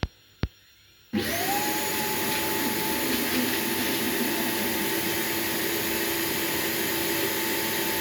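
Two short clicks, then a Roomba robot vacuum's motor starts about a second in, spinning up with a quickly rising whine and then running steadily.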